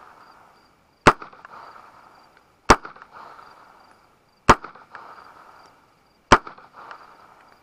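Four gunshots from an unsuppressed 9mm pistol-calibre carbine firing 115 grain supersonic rounds, evenly spaced a little under two seconds apart. Each sharp crack is followed by an echo that dies away over about a second and a half.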